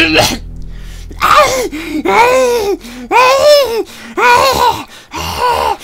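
Animated cat character's voice retching and heaving, about five strained gagging calls that each rise and fall in pitch, as he brings up a hairball.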